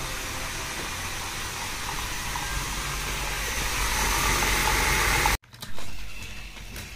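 A steady rushing hiss with no clear tone. It swells a little, then cuts off abruptly about five seconds in, leaving a short faint thump and near-quiet.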